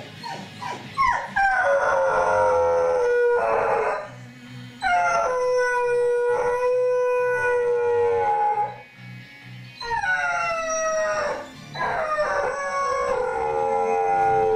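A dog left home alone howling: four long howls, each a few seconds long and sliding down in pitch, with short breaks between them.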